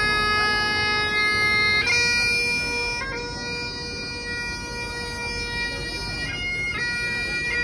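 Bagpipes playing a slow tune of long held notes over a steady drone.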